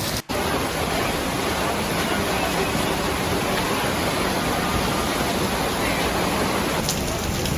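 Steady rushing of fast-flowing floodwater, an even noise with no breaks. Near the end it gives way to a different wash with a few sharp ticks.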